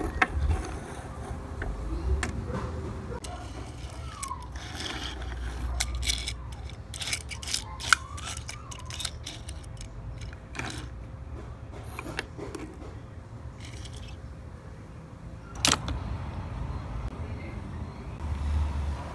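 Small die-cast toy cars being handled, pushed and set down on a tabletop: scattered light clicks and knocks of metal and plastic, with one sharper click near the end.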